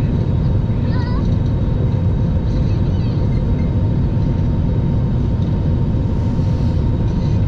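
Steady low engine and road rumble of a moving vehicle, heard from inside the cabin.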